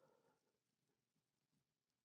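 Near silence: the still room tone of a sound-treated room.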